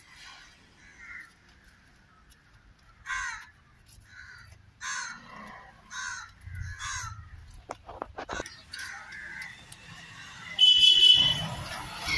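Crows cawing repeatedly, in short separate calls. Two sharp knocks come about 8 seconds in, and a louder high-pitched cry sounds near the end.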